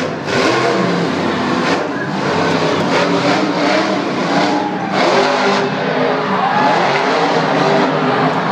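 Grave Digger monster truck's supercharged V8 revving up and down repeatedly as it drives across the dirt arena.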